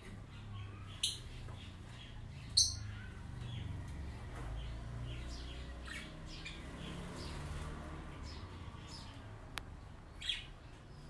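Small birds chirping in short, repeated calls, a few of them louder, over a low steady hum.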